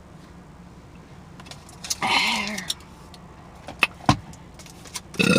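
Two loud burps, the first about two seconds in with a falling pitch, the second starting near the end, with a click and a sharp knock between them over a low steady hum inside a car.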